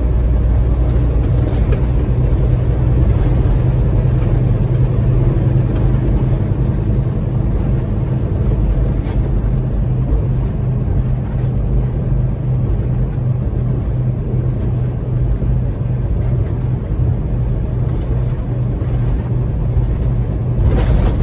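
Semi truck's engine and road noise, a steady low drone while cruising.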